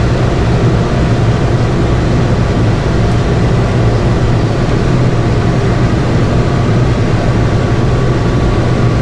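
Mahindra 85P tractor's engine running steadily, a constant low drone with no changes in speed.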